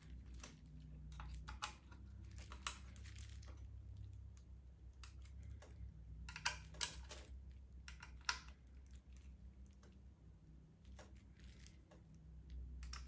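Faint, irregular small clicks and ticks of an Allen key working in small screw heads as the screws of a 3D printer's display mounting plate are tightened.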